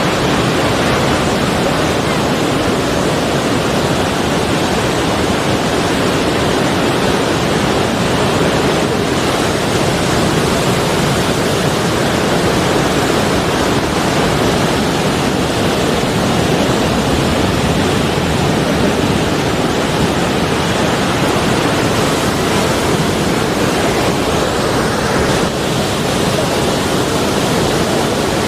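Sea waves washing on the shore in a steady, unbroken rush of surf, with no distinct breaking swells.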